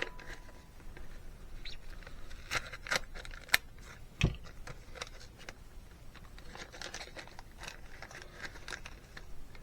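Small carburettor parts and their thin packaging being handled on a workbench: scattered light clicks and crinkling, with one dull thump about four seconds in.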